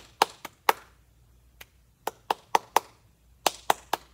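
Sharp taps in short rhythmic groups: four quick taps, a faint single tap, then two more groups of four quick taps, like a rhythm clapped or tapped out for a lesson.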